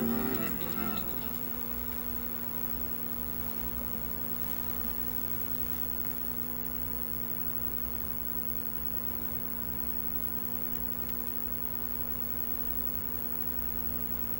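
Steady electrical mains hum with a light hiss from a television playing the end of a videotape, as guitar music fades out in the first second.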